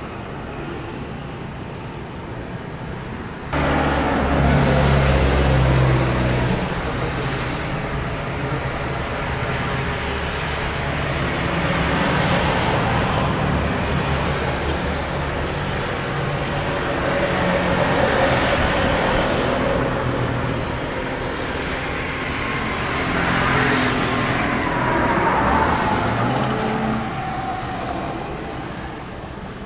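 Boeing 777-300ER's GE90 jet engines running at high thrust on the take-off roll, a loud steady roar. It jumps suddenly louder about three and a half seconds in, and a whine falls in pitch near the end as the aircraft passes.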